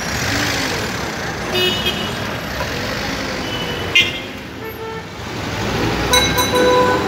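Street traffic din as a Raml tram rolls across the road on its track, louder toward the end, with several short horn toots. The longest and loudest toot comes near the end.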